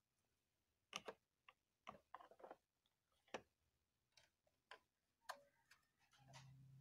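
Faint scattered clicks and taps of hard plastic toy kitchen parts being handled, about a dozen spread over several seconds. Near the end the toy stove's knob is turned and a faint low steady hum begins.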